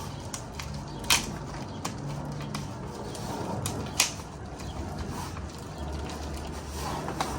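Small miniature park curb pieces being handled and set down: light clicks and handling noise, with two sharp knocks, about a second in and about four seconds in.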